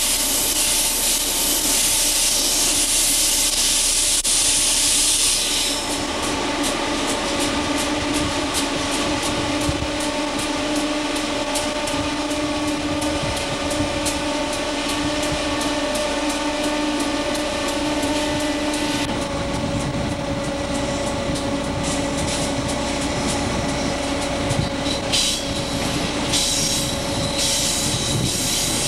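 EMD GF6C electric locomotive running, heard from its cab: a steady hum with several even tones over rumbling wheel-and-rail noise and light ticking. A loud hiss lies on top for the first six seconds or so, then drops away.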